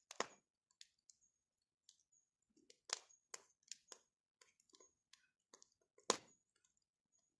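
Bonfire crackling: irregular sharp pops and snaps of burning wood, with the loudest snaps just after the start, about three seconds in and about six seconds in.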